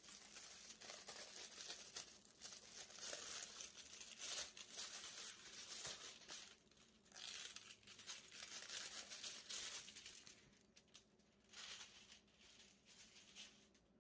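Clear plastic wrapping crinkling as it is handled and pulled off a photobook. The crinkling is dense for about ten seconds, then comes in a few short bursts and stops shortly before the end.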